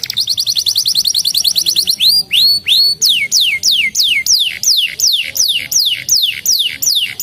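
Canary singing: a rapid high trill for about two seconds, two short rising notes, then a steady series of clear whistles, each sliding down in pitch, about three a second.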